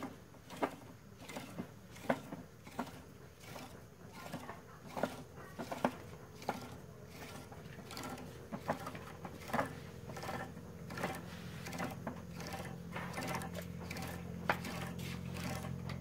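Irregular light clicks and taps from hand-knotting a nylon cast net with a wooden netting needle and mesh gauge. A low steady hum comes in about halfway through.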